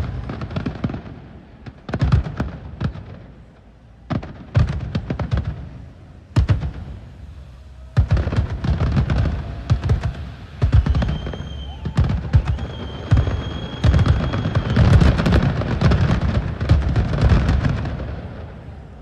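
Aerial fireworks bursting: separate deep booms with rumbling echoes every second or two. About eight seconds in they become a dense barrage of rapid bangs and crackling, which fades away near the end.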